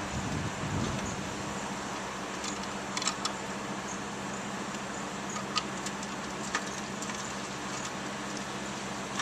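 Steady low engine hum running throughout, with a few faint short clicks and ticks scattered through the middle.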